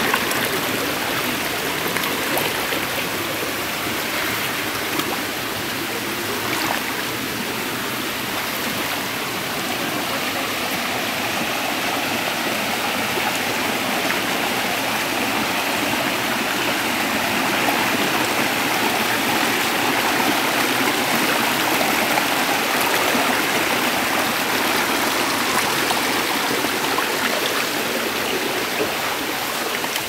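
A rocky stream rushing and splashing over boulders and small cascades, a steady rush of water.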